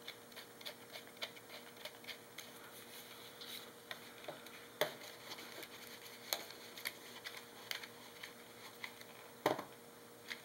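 Irregular small plastic clicks and taps from a Vello BG-N4 battery grip being fitted and locked onto a Nikon D7000 camera body, with a louder knock about five seconds in and another near the end.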